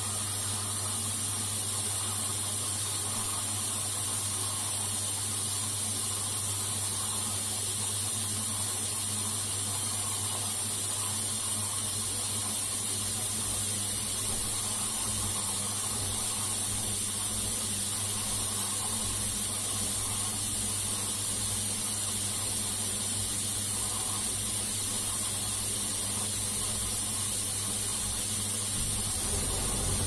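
Front-loading washing machine pumping out its soapy wash water: a steady electric hum from the drain pump under a rushing hiss of water. Shortly before the end the hum breaks off and a rougher low rumble takes over.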